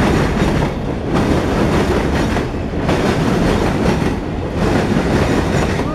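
CSX covered hopper cars of a freight grain train rolling past at close range: a steady rumble of steel wheels on the rails, its higher part easing about every second and a half.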